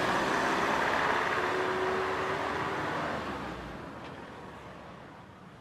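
A steady rush of road traffic noise that fades away over the last two seconds or so.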